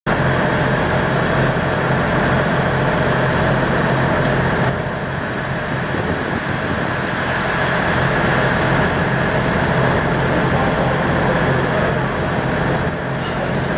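Steady loud mechanical noise of a running engine or train, dipping briefly about five seconds in.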